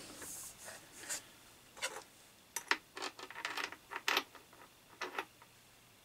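Faint clicks, taps and rubbing from handling the plastic guard and metal gear head of a petrol strimmer attachment: a scattered handful of short, sharp knocks with quiet gaps between them.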